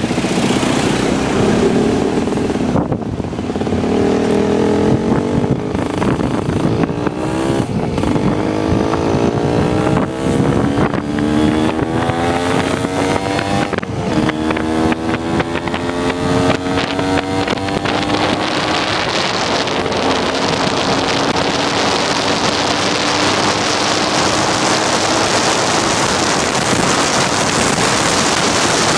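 Motorcycle engine accelerating up through several gears, its pitch rising and dropping back at each shift, then holding a steady cruise. Wind rushes over the microphone, loudest once cruising speed is reached.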